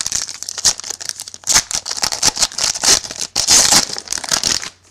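A 2011 Playoff Contenders football card pack being torn open by hand, its wrapper crinkling in a dense run of sharp crackles that stops just before the end.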